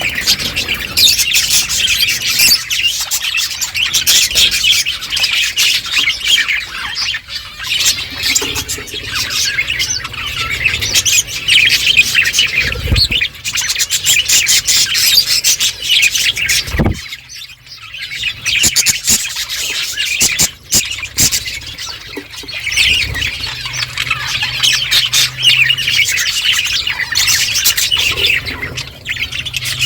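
Budgerigars chirping and chattering continuously in a dense, high-pitched stream with squawks mixed in, dropping off briefly about seventeen seconds in before picking up again.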